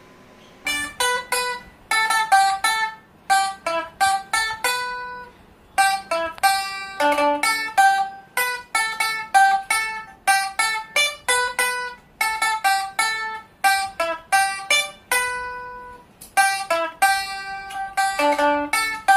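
Pipa (Chinese four-string lute) played solo: a melody of quick plucked notes in short runs, with a few longer ringing notes in between.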